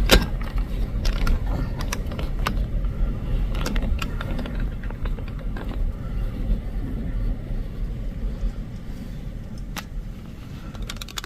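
Strong gusting wind buffeting the microphone: a low, uneven rumble with crackling, easing off somewhat toward the end.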